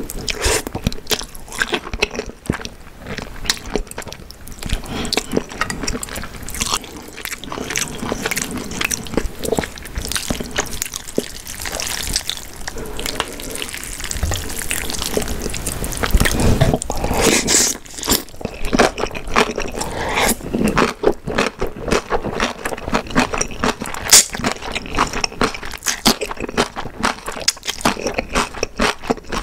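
Close-miked mukbang eating sounds: wet chewing, smacking and slurping, with many small mouth clicks and a louder stretch a little past halfway.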